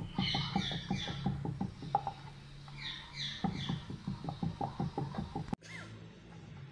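A rolling pin working dough back and forth on a round wooden board, clicking and knocking quickly, about six clicks a second, with two short bursts of high chirps. The clicking cuts off abruptly a little before the end.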